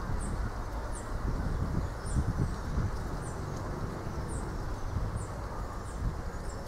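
Wind blowing through coconut palms, gusting against the microphone, with short high chirps repeating about once a second.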